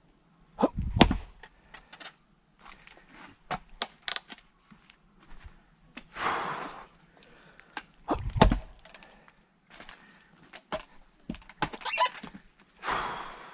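Firewood being split by hand: two heavy blows into wood, about a second in and about eight seconds in, with small knocks and clatter of wood pieces between them and two hard breaths out.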